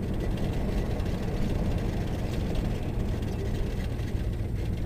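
Cab interior of an old Chevrolet pickup with a 350 V8 driving at a steady speed on a rough country road: the engine's steady low drone mixed with tyre and road rumble, with no sudden changes.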